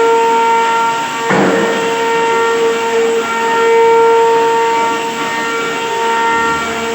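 A woodworking power machine running with a steady high whine, and a short rough burst of cutting noise about a second in.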